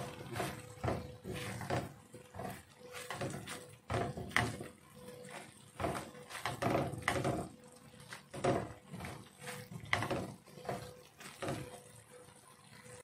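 A spatula stirring and scraping thick sweet-and-sour sauce around a nonstick frying pan, in irregular strokes about once or twice a second, with a faint steady hum underneath.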